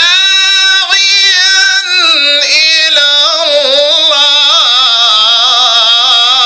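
Male Quran reciter chanting in the Egyptian melodic (mujawwad) style, amplified through a microphone. He sings one long, high, unbroken phrase whose pitch wavers and turns in ornamented melisma.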